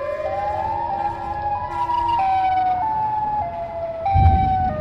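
Siren Head siren sound effect: several layered siren wails that glide upward and then step up and down in pitch. A low rumble comes in near the end.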